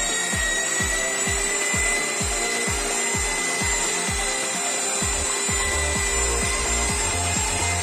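Asian Paints wall sanding machine running steadily against a painted wall, its motor whine held steady over the rasp of the round pad grinding off old paint. Background music with a steady beat plays underneath.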